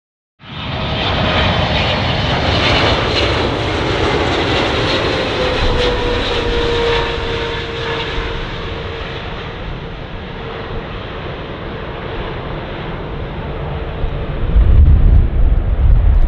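Boeing 777-300ER's twin GE90 turbofan engines on final approach: a loud jet roar that cuts in just after the start, with a whine that drops in pitch as the airliner goes past, then slowly fades. A heavy low rumble comes in about two seconds before the end.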